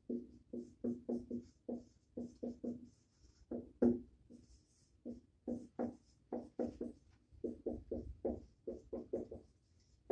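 Dry-erase marker squeaking and scratching on a whiteboard in quick, short strokes as words are written, with small gaps between letters.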